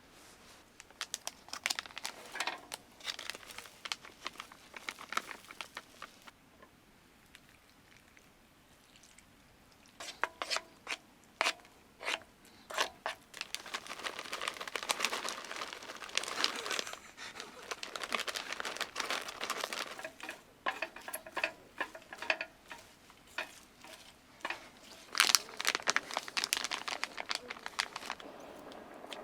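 Crinkling and crunching handling noises with sharp clicks, coming in irregular spurts, pausing for a few seconds and then busier in the second half.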